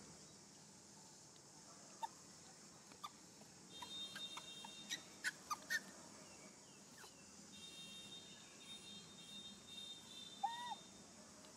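Faint outdoor birdsong: scattered short chirps, a high trill that comes twice, and one short rising-and-falling call near the end, over a steady high hiss.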